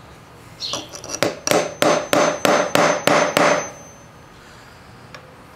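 About eight hammer blows, roughly three a second, on a nail set being used as a punch to drive a ground-down pin out of a bicycle roller chain link on a wooden workbench. The wood absorbs the blows, so the pin is not yet coming out.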